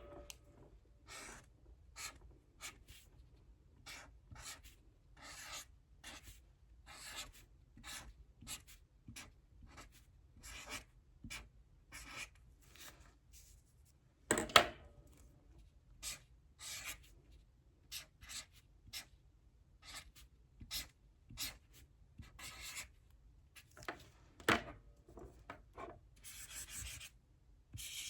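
Handwriting: a long run of short, separate writing strokes as fraction problems are worked out by hand, with two louder knocks, one about halfway and one a little before the end.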